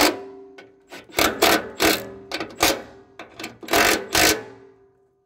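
Cordless power driver run in several short trigger bursts with a motor whine, tightening a set screw or nut on a snowblower jack shaft's sprocket and chain adjuster.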